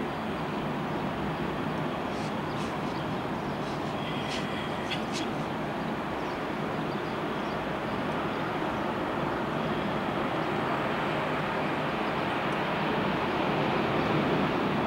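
Steady rush of ocean surf breaking on the beach, mixed with wind, growing slightly louder toward the end. A few faint, brief high chirps come about two to five seconds in.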